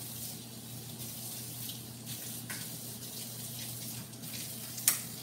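Water running from a kitchen tap in a steady hiss, over a low steady hum, with a few light knocks and a sharp click shortly before the water stops near the end.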